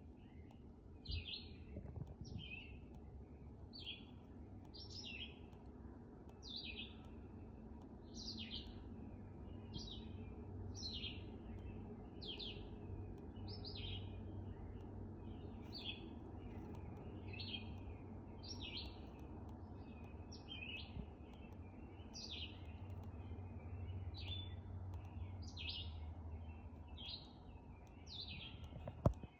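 A bird calling with short high chirps, repeated about once a second and evenly paced, over a low steady background rumble.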